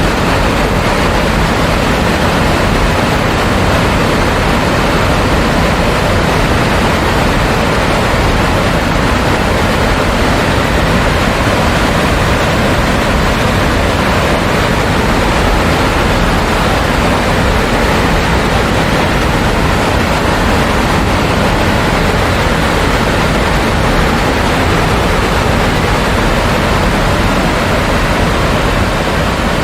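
Water of a six-tiered waterfall rushing down its cascades: a loud, steady roar with no breaks or changes.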